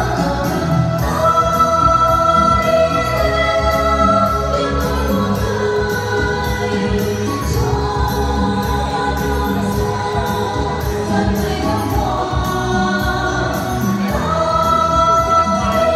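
A song performed by several women's voices singing together in long held notes over instrumental accompaniment with a steady beat.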